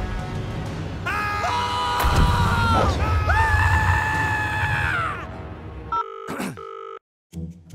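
Cartoon T. rex roar sound effect: a long wavering cry over a deep rumble, about four seconds long. It cuts off, and near the end a short electronic telephone ring sounds in brief bursts.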